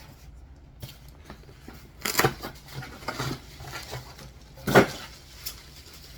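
Hands handling packaging and a hard plastic graded-comic slab: scraping and rustling about two seconds in, and a single sharp clack near five seconds.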